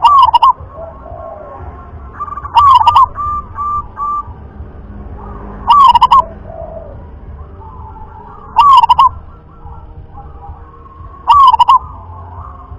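Local zebra dove (perkutut) singing its cooing song: five short phrases of quick repeated coos, about one every three seconds, the second phrase followed by three short level notes. Fainter bird calls are in the background.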